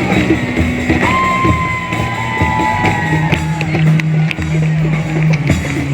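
Live band music with a long held high note from about one second in until about three seconds, then steady low bass notes, with sharp percussive hits scattered through.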